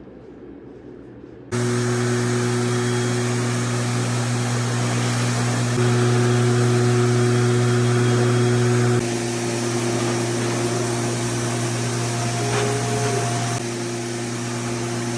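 Electric blow dryer starting up and running steadily, a motor hum under a rush of air, drying a freshly bathed dog. Its loudness steps up and down a few times as it is moved or its setting changes.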